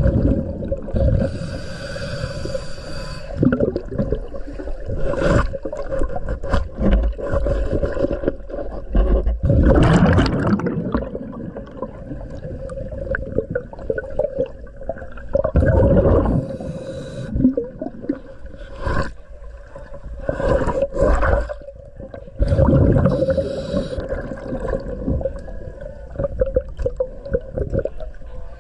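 Diver breathing through a regulator underwater: hissing inhalations and bubbly exhalations recurring about every five to six seconds, over a steady hum.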